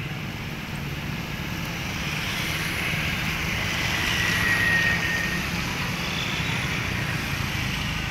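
Motorcycle traffic on a wet street: engine drone and tyre hiss, swelling to its loudest about halfway through as a motorcycle passes close.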